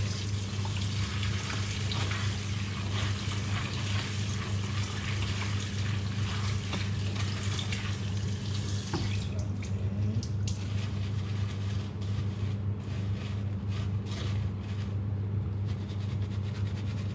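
Tap water running into a kitchen sink while something is washed; the flow turns lighter and more broken about halfway through. A steady low hum runs underneath.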